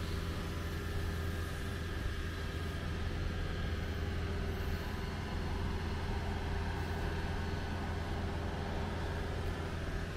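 Vehicle engine running steadily at idle, a constant low hum over town street noise.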